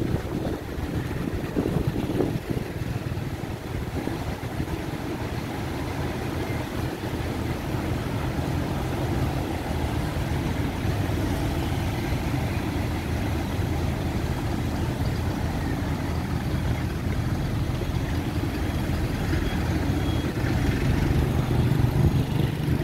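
Fire truck engine running steadily to drive its water pump while the hose jets are spraying, a little louder near the end.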